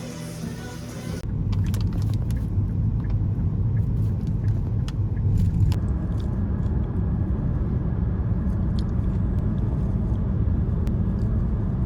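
A low, steady rumble with scattered light clicks begins abruptly about a second in, replacing music. A faint steady high tone joins it about halfway through.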